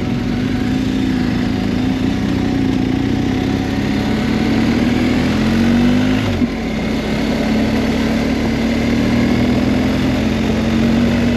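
BMW R1250 GSA boxer-twin engine pulling away at low speed. Its pitch climbs, then drops sharply about six seconds in as the bike shifts up a gear, then runs steadily.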